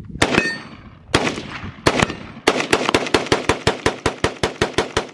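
Gunfire: a few single shots, then from about halfway a rapid string of shots at about five a second.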